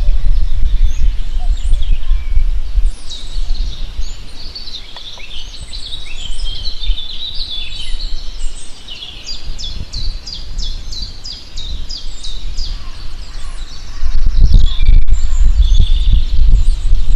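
Several songbirds chirping and calling, with a fast run of repeated notes, about four a second, near the middle. Underneath is a low rumble, loudest at the start and again near the end.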